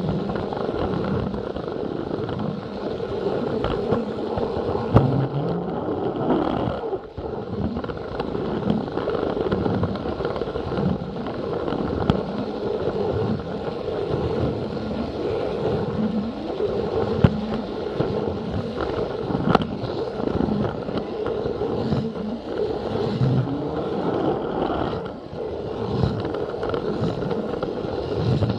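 Battery-powered Plarail toy train's motor and gears running steadily, with the wheels clicking and rattling over the plastic track.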